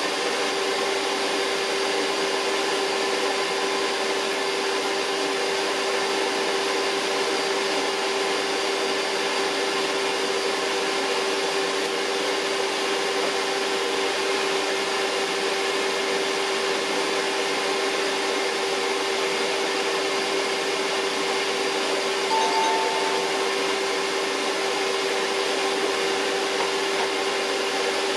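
Electric motor running steadily with a constant whine, its pitch and load unchanging, with a brief small blip about three quarters of the way through.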